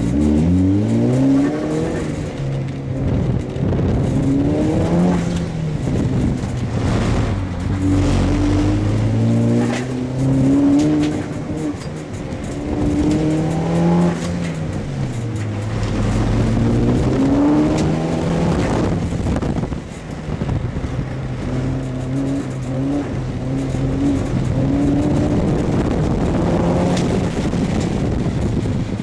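Mitsubishi Lancer Evolution IX's turbocharged 2.0-litre four-cylinder engine being driven hard through an autocross course. The revs climb under acceleration and drop on lift-off and gear changes, over and over.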